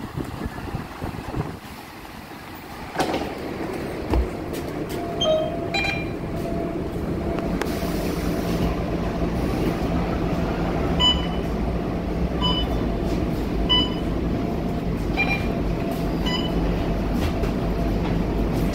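Scania K230UB bus's five-cylinder diesel engine running as the bus stands at the bay, heard from inside the cabin as a steady low hum. Over it comes a string of short electronic beeps, about a second or so apart, from the fare card readers as passengers tap in.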